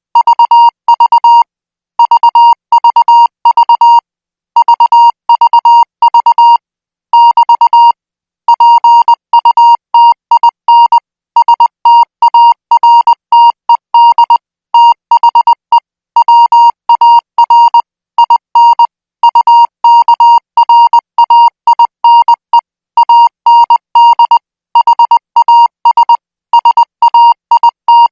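Morse code at 20 words per minute: a steady high-pitched beep keyed on and off in dots and dashes, sent in groups separated by short pauses.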